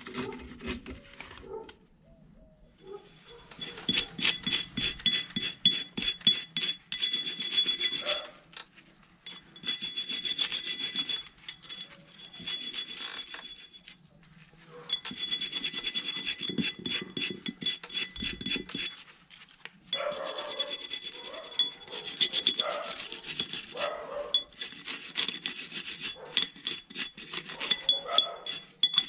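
Rusty steel rear brake drum of a Ford Transit MK6 being scrubbed with a wire brush: bursts of rapid back-and-forth scratching strokes, broken by short pauses. Near the end, metal clinks and scrapes as a metal rod works against the drum.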